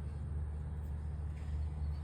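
A steady low droning hum under a faint even background noise.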